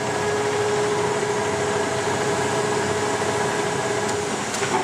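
A 1977 LeBlond Regal Servo-Shift engine lathe running with its spindle at 654 RPM: a steady whine of several tones holding one pitch, with a faint click or two near the end.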